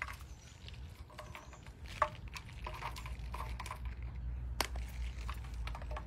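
Light pattering and rustling of shredded cheese sprinkled by hand onto slider buns in a disposable aluminium foil pan. A few sharp ticks stand out, the sharpest about two seconds in, over a low steady rumble.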